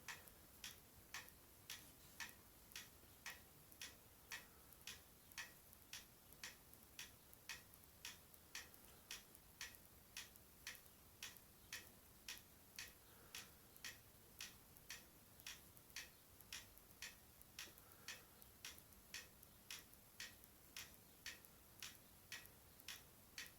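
Near silence with faint, regular ticking, about two ticks a second, steady throughout.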